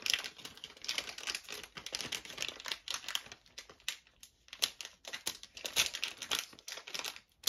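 Plastic wrapper of a trading-card pack crinkling and rustling in the hands as it is worked open, in quick irregular crackles.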